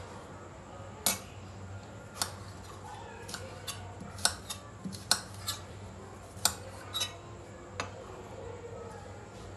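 Kitchen knife cutting carrot directly on a marble countertop: about a dozen sharp, irregular knocks of the blade striking the stone.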